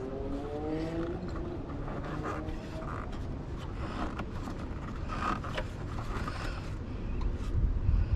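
Light scrapes and clicks of parts being handled and pushed into place during a van blower installation, over a steady low rumble. A rising hum is heard in the first second or so.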